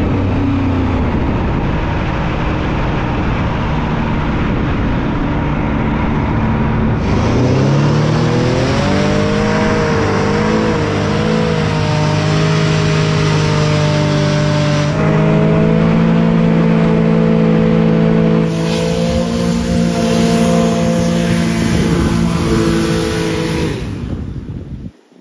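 SCAT hovercraft's engine and fan running over rushing air. The revs drop right at the start as it throttles down to slow. About eight seconds in they climb and waver, then hold steady. The sound cuts off suddenly near the end.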